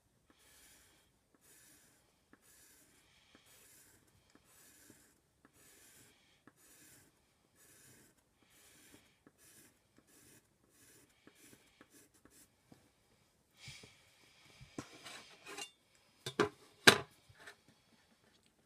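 Pencil scratching on paper in quick, faint repeated strokes, about two a second, as lines of a drawing are gone over. Near the end, louder rustling and a few sharp knocks as a metal ruler is moved and laid down on the paper.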